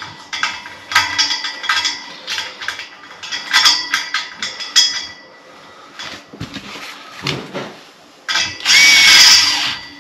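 Small metal radiator bracket parts clinking and clicking as they are handled and fitted. Near the end a cordless drill runs in one short burst of about a second and a half with a steady whine.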